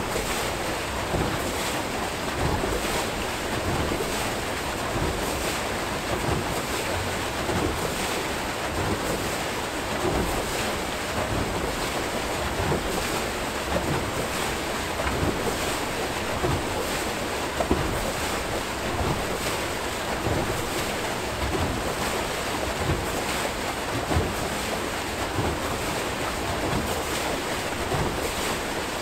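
Steady rush and churn of river water pouring out of a turning Archimedes-screw hydroelectric turbine into the tailrace, with a faint splash repeating at an even beat as the screw turns.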